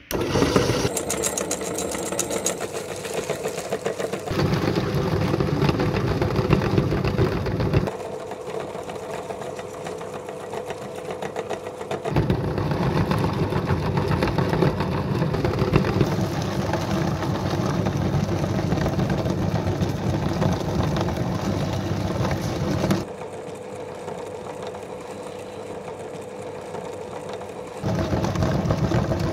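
Motor-driven meat grinder starting up as it is switched on and running steadily while mincing whole herring, a machine hum with one steady tone through it. The running sound steps louder and quieter in long stretches as the fish feeds through.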